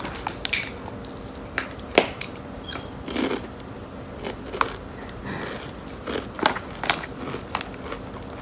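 Crab-flavoured potato chips being bitten and chewed: irregular sharp crunches, a few to each second or two, with the loudest about two seconds in.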